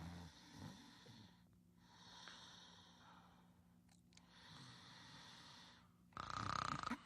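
Cartoon characters snoring in their sleep: faint, slow breaths in and out, then a louder, rougher snore near the end.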